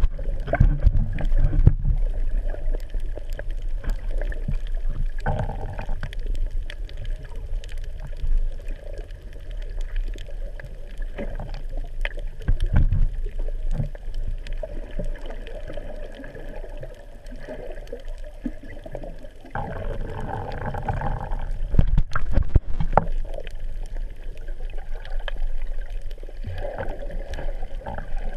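Muffled underwater water noise picked up by a camera held below the surface: a continuous low rumble with gurgling and swishing as water moves past the housing, and a few sharp knocks.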